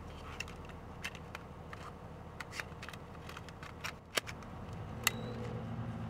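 Small plastic clicks and rattles of a Coby portable cassette player as a cassette is loaded and the lid shut, with one sharp click about four seconds in, over a low steady hum.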